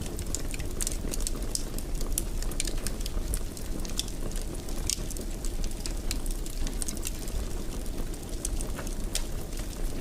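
Wood fire in a fireplace crackling, with frequent irregular sharp pops and snaps over a steady low rumble of burning.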